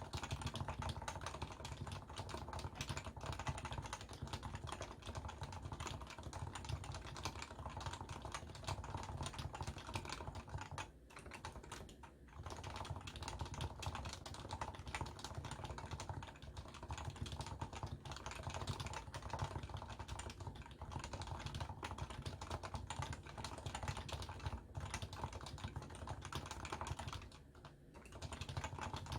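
Continuous fast typing on a Leopold FC660C keyboard with stock, non-silenced 45 g Topre electro-capacitive switches, recorded through a Samsung Galaxy S10+ phone microphone. The typing pauses briefly about 11 and 12 seconds in and again a couple of seconds before the end.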